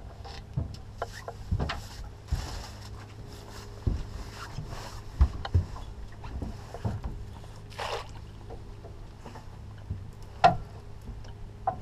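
Scattered knocks and clunks of gear being handled on an aluminum fishing boat as a landing net is picked up and lowered over the side, with two short rushes of noise, about two and a half and eight seconds in, and a faint low hum underneath. The loudest knock comes about ten and a half seconds in.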